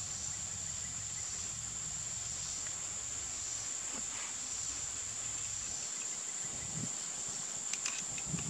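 A steady, high-pitched insect chorus runs on throughout, with a few light clicks near the end as small parts of the air rifle are handled.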